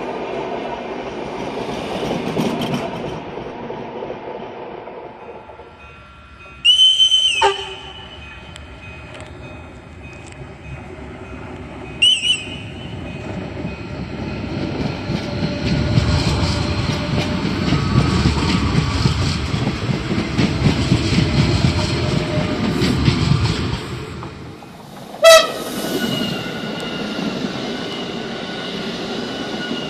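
Renfe trains running along the track, the rolling noise swelling as one passes in the middle. Three short horn blasts sound, about seven seconds in, about twelve seconds in, and a loudest one near the end that drops in pitch.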